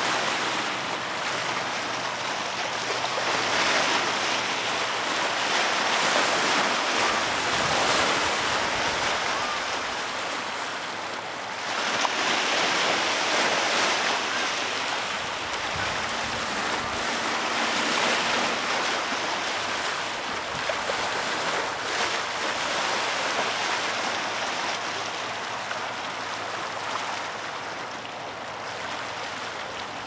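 Tennessee River water washing in continuous swells that rise and fall every few seconds.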